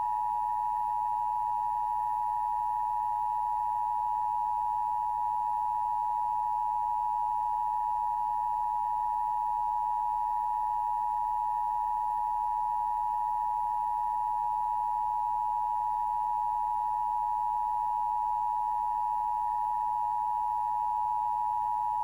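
Emergency Broadcast System attention signal on a station test: two close steady tones sounded together, held unbroken for about 22 seconds and cutting off abruptly at the end.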